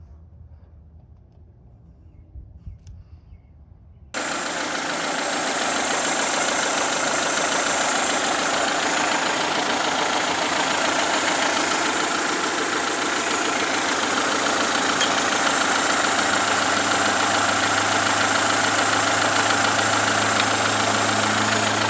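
Honda D15A2 (EW1) four-cylinder engine running steadily at idle after its head gasket replacement. It cuts in abruptly about four seconds in, after a few quiet seconds.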